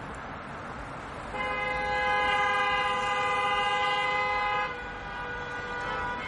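A horn sounds one long, steady chord of several notes, starting about a second in and held for about three seconds, then carries on more faintly over a background hiss.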